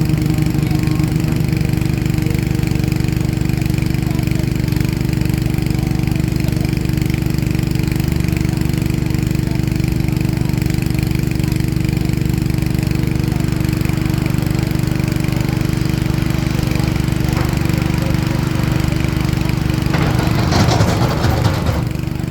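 Heavy diesel engine of a CAT excavator running steadily. Near the end comes a loud rattling burst lasting about two seconds.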